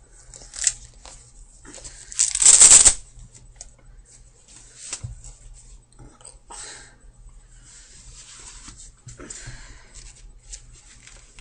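Rustling and scraping of soccer shin guards and socks being handled and pulled off, loudest in one noisy burst under a second long about two seconds in, with softer rustles after it.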